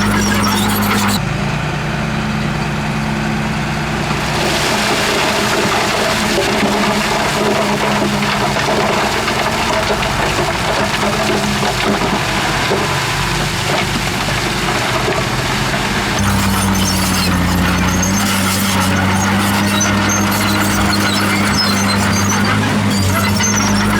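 Heavy diesel earthmoving machinery at work: a diesel engine running under load, its note changing about a second in and again around sixteen seconds in, over a steady mechanical din.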